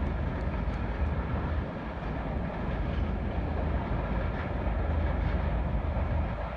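An express train hauled by a PHA-20 diesel-electric locomotive running away along the track, giving a steady low rumble of wheels on rails and engine.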